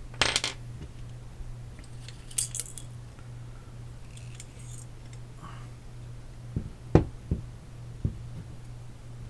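Small metal parts of an AR-15 folding stock adapter and stock clicking and clinking as they are handled and fitted, with a few sharp knocks in the second half, the loudest about seven seconds in. A steady low hum runs underneath.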